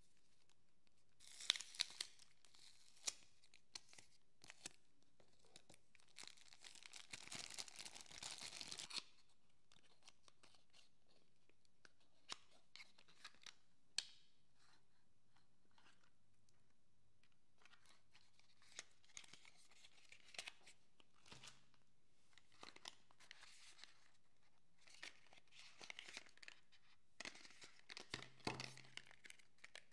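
Clear plastic wrap being torn and crinkled off a small cardboard soap box, with a short burst of tearing about a second in and a longer, louder stretch from about six to nine seconds. After that comes softer handling of small cardboard boxes: light taps, clicks and rustles.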